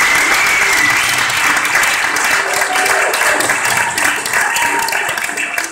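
An audience applauding, with a few voices mixed in; the clapping slowly dies down near the end.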